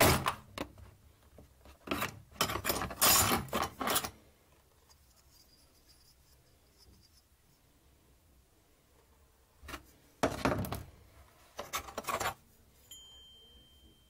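Hands handling a hard plastic tool case and its accessories: the plastic parts and steel oscillating-tool blades rattle, scrape and clink in four short bursts with quiet stretches between.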